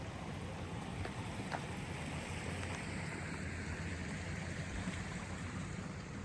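Steady rain, an even hiss with a low rumble underneath and a couple of faint ticks of drops about a second and a second and a half in.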